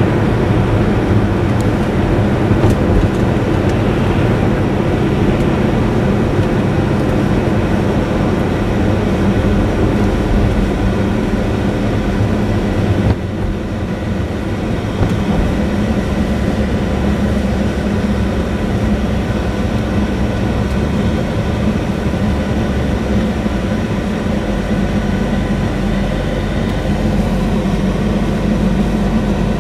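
Engine and tyre noise heard inside an Audi S8's cabin while driving at an even pace, a steady drone with a low rumble. The level drops suddenly about 13 seconds in, then carries on steady.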